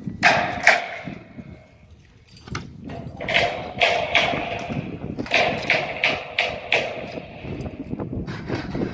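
A series of sharp metal knocks and clanks with a short ringing after several of them, as rack parts are set and fitted together.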